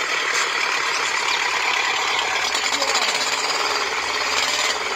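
Toy tractor's engine sound, a rapid, steady chugging, as it pulls away with a loaded trailer.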